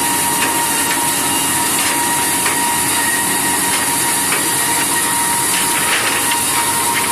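Wooden round-rod forming machine running, its cutter head shaving wood into round broom and mop handles: a steady high hiss with a constant whine and a few faint ticks.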